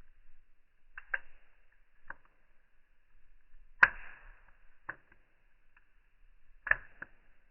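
Burning wood fire crackling in slow motion: about seven sharp pops at irregular intervals, each with a short ringing tail. The loudest pop comes about four seconds in.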